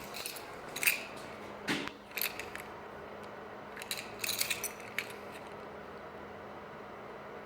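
Several light metallic clicks and clinks of small hard objects being handled. The sharpest comes about a second in and a quick cluster follows around four to five seconds, all over a faint steady hum.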